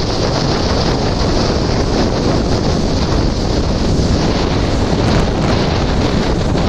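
Strong Hurricane Ian storm wind buffets the microphone in a steady, loud rumble, over heavy surf breaking on the beach.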